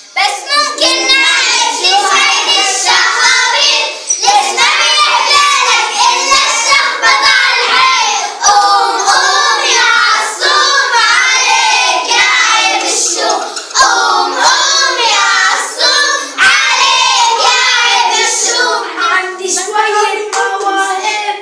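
Children singing together, loud and continuous, with sharp hand claps scattered through the song.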